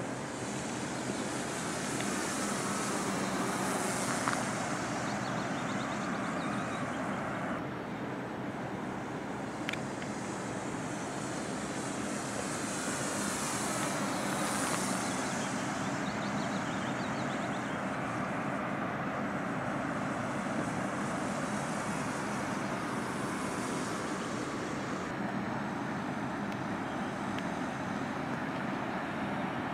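Radio-controlled Yak aerobatic model plane in flight: the steady drone of its motor and propeller, swelling and fading as it passes back and forth overhead.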